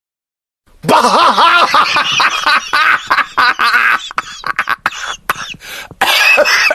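A person laughing hard, starting about a second in with loud pitched laughs that break into rapid short bursts of laughter, with another loud burst near the end.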